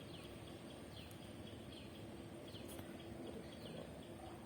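Faint outdoor ambience with short, high, falling bird chirps repeating about twice a second over a steady low hum.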